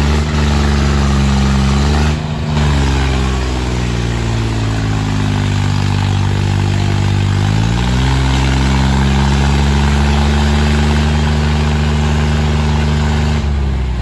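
Diesel engines of two John Deere tractors, a 5050 D and a 5039, running hard under load as they pull against each other in a tug of war. The engine note sags about two seconds in and climbs back up a few seconds later.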